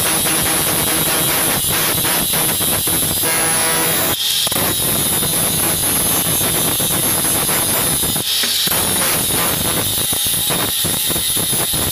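Angle grinder with a thin cut-off disc cutting through stainless steel square tube: a steady, high-pitched motor whine mixed with the hiss of the disc in the metal. The sound dips briefly twice, about four and eight seconds in.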